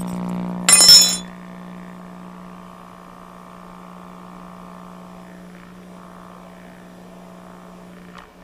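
Loudspeaker of a 1939 Philco 40-120 radio giving out a steady, buzzy mains hum with many overtones, the heavy hum that a strong magnet near the beam power output tube can null. About a second in there is a sharp clink, and a small click near the end.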